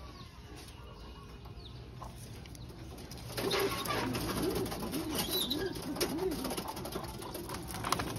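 Domestic pigeons cooing, a low call that rises and falls over and over, starting about three seconds in, with a few light knocks and rustles from the birds in the wire cage.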